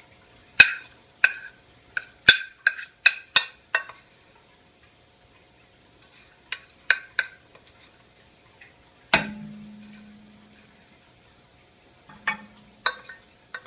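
A kitchen utensil clinking and tapping against a metal pot while red pepper paste is scooped in: a run of sharp clinks in the first four seconds, a few more later. About nine seconds in a heavier knock sets the pot ringing low for about a second and a half, and a shorter ringing knock comes near the end.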